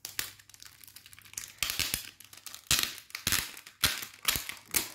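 Clear plastic packaging and a paper booklet crinkling as they are handled, in irregular bursts of rustling and crackle.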